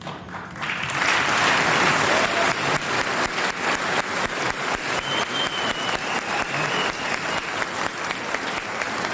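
Large audience applauding, swelling within about the first second into sustained clapping.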